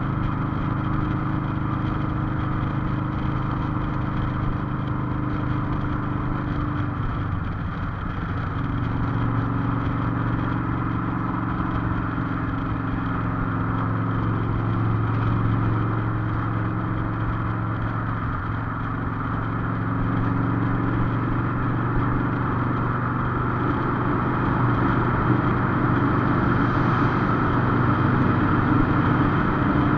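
Cruiser motorcycle engine running steadily under way, with continuous road and wind noise. The engine note shifts pitch about eight seconds in and again around twenty seconds, as the speed or gear changes.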